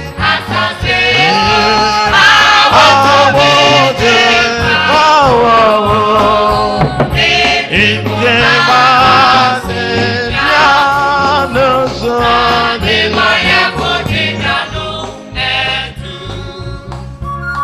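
Gospel song playing: voices singing over a steady beat, growing somewhat softer near the end.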